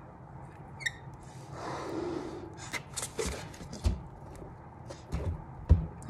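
A latex balloon being blown up by mouth: one long breath blown into it about two seconds in, with a brief rubbery squeak before it, then a few knocks and handling sounds as the inflated balloon is held shut.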